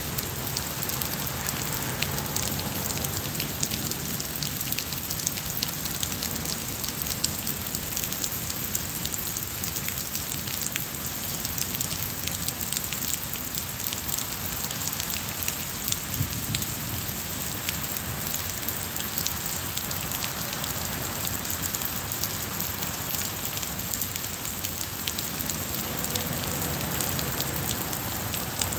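Steady rain falling on wet paving and garden plants, a continuous hiss with many separate drops ticking close by.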